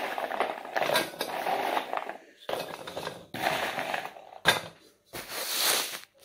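Cocoa shortbread biscuits being crushed and crumbled by hand in a stainless-steel pot: irregular crunching and rattling against the metal in uneven bursts with short pauses, and one sharp click about four and a half seconds in.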